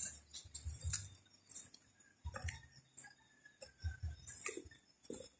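Footsteps crunching over dry leaves and twigs, an uneven walking pace of about two steps a second, each step a short crackle with a dull thud underneath.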